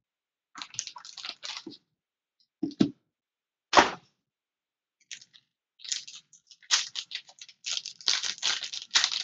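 Foil wrapper of a trading-card pack crinkling and tearing open, with irregular crackles, two sharp cracks near the middle, and denser crinkling toward the end.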